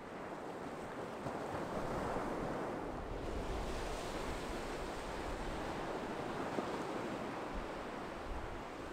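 Ocean surf: a wave breaking and washing up the beach, swelling about a second in and easing off near the end. Low wind buffets the microphone in the middle.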